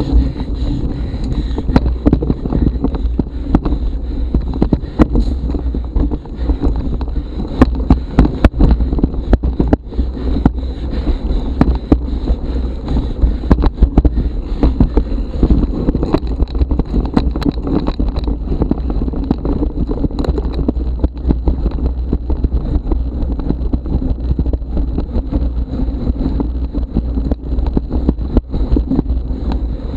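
Mountain bike ridden over a rough forest trail: steady wind rumble on the action camera's microphone, with frequent knocks and rattles from the bike over the rough ground.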